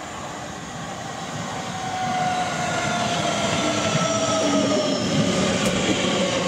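Southeastern Class 465 Networker electric multiple unit running into a station and slowing as its coaches pass close by. The running noise grows louder, and a whine falls steadily in pitch as the train brakes.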